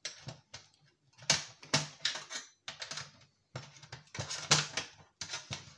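Metal-and-plastic electronics casing top cover being lifted and worked off its clips, making irregular clusters of clicks and rattles.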